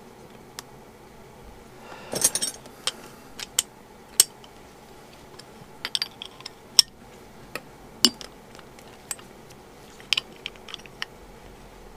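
Steel spanners and small metal parts clinking on a workbench. A burst of jangling about two seconds in, as spanners are picked out of a pile, then scattered sharp single clinks while a spanner is worked on the motorcycle side stand's pivot bolt.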